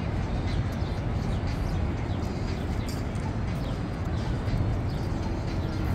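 City street ambience at an intersection: a steady low rumble, with faint short high chirps every so often.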